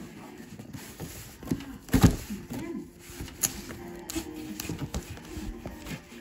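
A large cardboard shipping box handled on a wooden tabletop: knocks and cardboard scraping, with one loud thump about two seconds in as the box comes down on the table.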